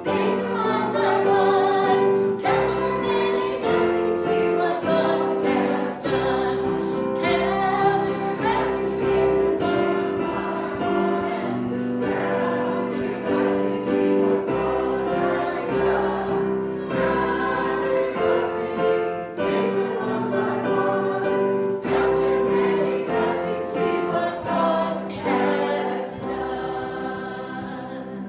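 A choir singing a gospel hymn with musical accompaniment, in long held notes, fading somewhat near the end.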